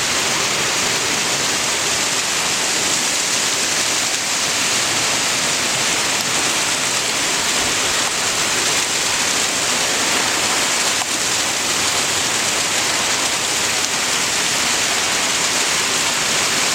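Heavy downpour of rain: a loud, steady hiss of rain falling and splashing on surfaces, unbroken throughout.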